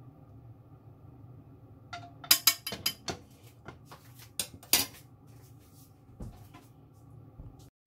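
Metal cutlery clinking against a plate: a quick run of sharp clinks about two seconds in, the loudest near the middle, then a few faint taps.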